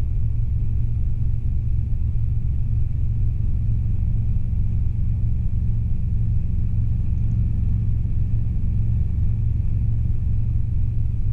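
Robinson R22 helicopter in flight, heard from the cockpit: a steady low drone of engine and rotor with no change in pitch.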